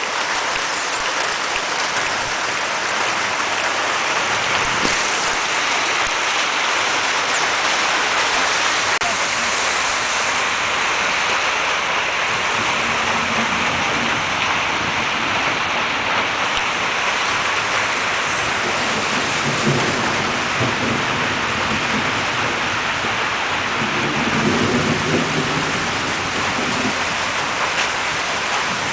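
Heavy rain falling steadily, a continuous loud hiss of water on surfaces. A low rumble rises under it a few times, around the middle and again near the end.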